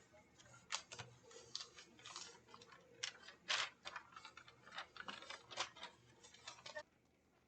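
Irregular small clicks and taps, a few a second, that stop abruptly near the end.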